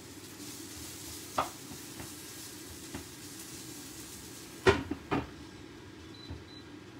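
Vegetables sizzling in a frying pan once its glass lid is lifted off, with a sharp clank about a second and a half in. Near the end, three loud clanks as the lid goes back onto the pan, after which the sizzle is cut off.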